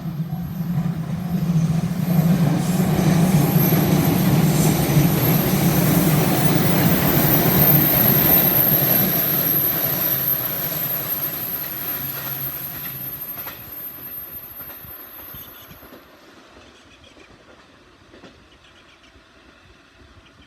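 Electric multiple-unit train passing close by on the line, its rumble and wheel noise building to a peak a few seconds in and fading away by about 15 seconds in, with a high steady whine carried along until it fades. A level-crossing bell is ringing at the very start.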